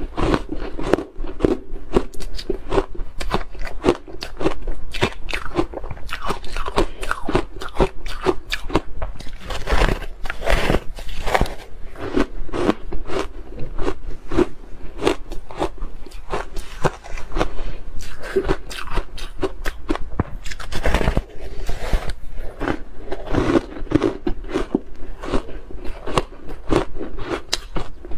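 Crunching and chewing of a bar of frozen ice coated in matcha powder: a dense, steady run of sharp crunches as the ice is bitten and ground between the teeth.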